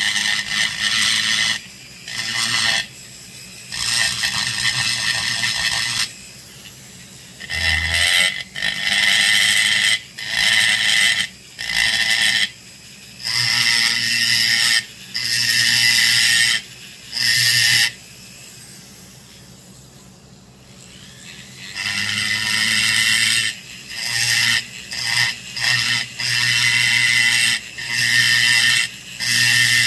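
High-speed rotary grinder with a burr cutting into a vintage Homelite XL922 chainsaw crankcase, trenching the transfer passages. It runs in short bursts of one to three seconds, starting and stopping over and over, with a longer pause a little past the middle.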